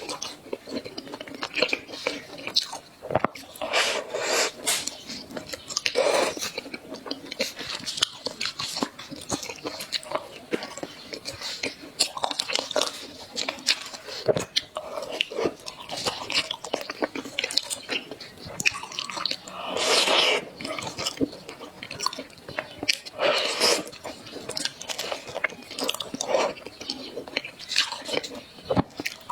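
Close-up eating sounds: a person biting and chewing food with many quick, irregular crunches.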